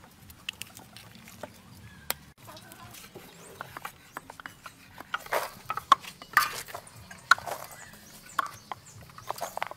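Several knives chopping red chillies on round wooden chopping boards: irregular sharp knocks, sparse at first and coming thicker and louder from about halfway through.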